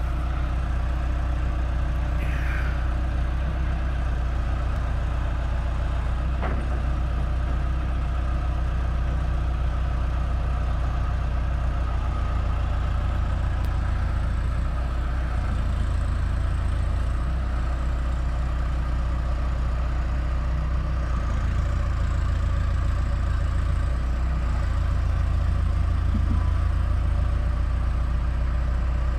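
Telehandler engine running at a steady idle.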